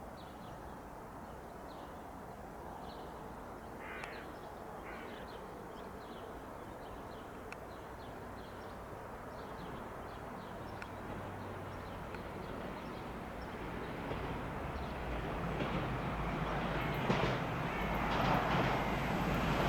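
Quiet open-air ambience with a few bird calls about four to five seconds in, then the rumble of an approaching train growing steadily louder over the last several seconds.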